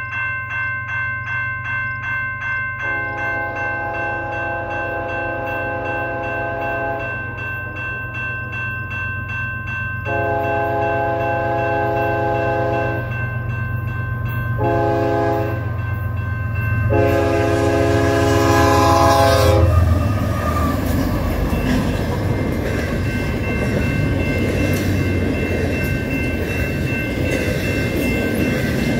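A railroad crossing's electronic bell rings steadily while an approaching freight's lead ES44AC locomotive sounds its Nathan K5HL five-chime horn in the grade-crossing pattern: long, long, short, long. About twenty seconds in, the locomotives reach the crossing, and the loud rumble and rattle of the passing train takes over, with the bell still ringing.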